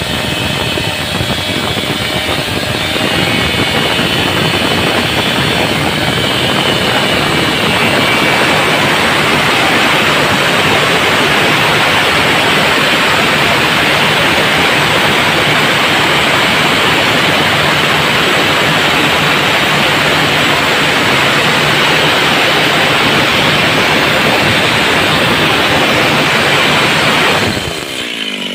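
Chainsaw running at high revs, ripping lengthwise down a wooden plank along the grain. The engine note drops briefly near the end as the throttle eases off.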